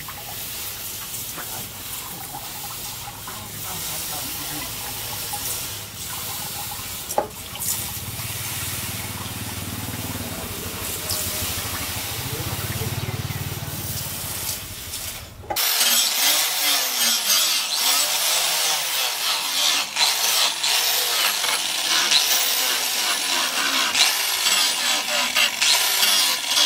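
A steel knife blade rubbed on a wet sharpening stone, with water poured over it. About fifteen seconds in, this gives way abruptly to a louder electric angle grinder grinding the steel blade, its pitch dipping and recovering as it bites.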